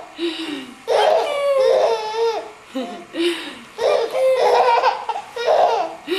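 A baby laughing in several bouts, each a string of high-pitched laughs with short pauses between them.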